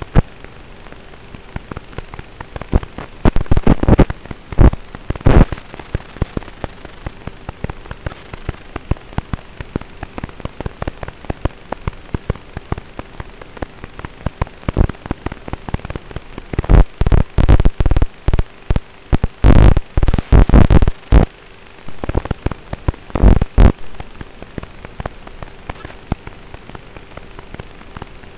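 Noisy audio from an FPV aircraft's onboard camera feed: a steady hiss with a faint hum, broken by clusters of loud crackling pops a few seconds in, for several seconds past the middle, and once more shortly after.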